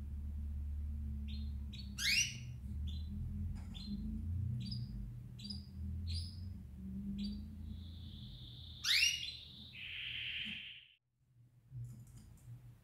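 Canaries chirping with short high calls about twice a second, two louder falling calls and one held whistled note, over a low steady hum. The sound cuts out suddenly near the end.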